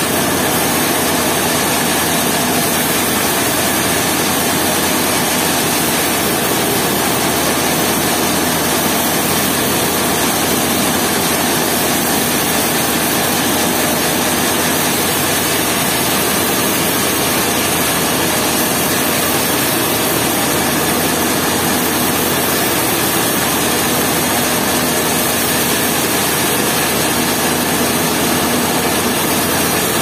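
An engine running steadily with a constant drone, no change in pitch or level.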